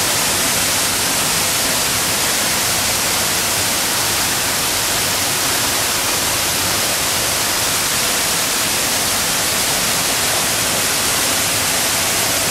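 The Hinterrhein waterfall in the Roffla gorge pouring down at close range, heard from behind the falling curtain of water as a steady, unbroken rush.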